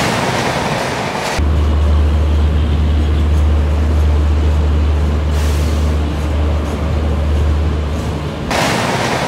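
Railway train noise: an even rushing rumble with a steady deep hum. The hum drops out about a second and a half in and again near the end.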